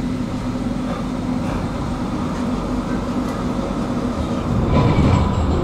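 A tram heard from inside the passenger cabin while it runs along its track: a steady rumble of wheels on rails and running gear, growing louder near the end.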